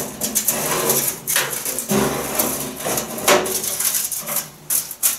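Irregular knocks, clatter and sharp clicks as a small countertop toaster oven's door is opened and its metal tray handled.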